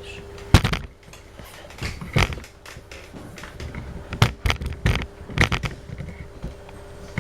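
Irregular knocks, clicks and scrapes of things being handled, about a dozen, the loudest about half a second in, over a faint steady hum.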